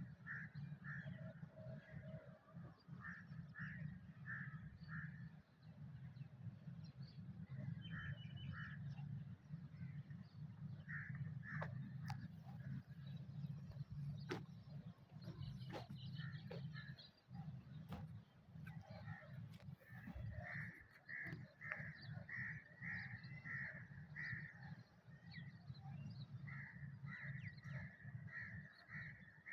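Birds calling in runs of four to six short, evenly spaced calls, several times over, above a faint steady low rumble. A few sharp clicks come through in the middle.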